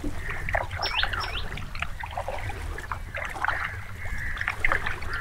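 Birds calling: many short chirps and a few quick falling whistles, over a steady low rumble.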